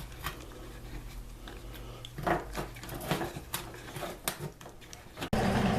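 Scattered light clicks and knocks of small objects being handled, over a low steady hum.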